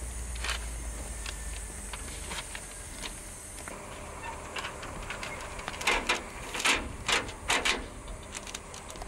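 Footsteps crunching on railway track ballast, with a cluster of louder crunches about six to eight seconds in as the walker stoops and kneels on the stones.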